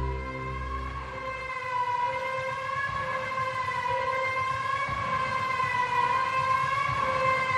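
Background music: a held, slowly wavering synth tone that sounds like a siren. The low pulsing beat under it drops out about a second and a half in.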